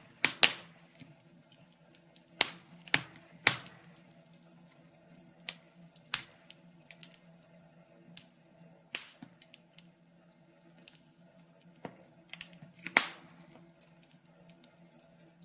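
Wood fire crackling in a fireplace: irregular sharp pops and snaps, about one a second, over a faint steady hum.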